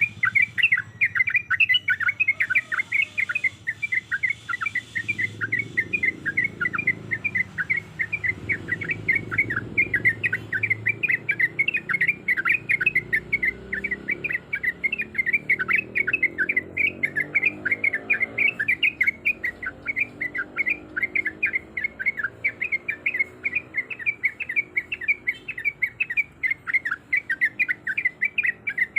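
Sooty-headed bulbul chattering in an unbroken run of quick, short notes, about five a second.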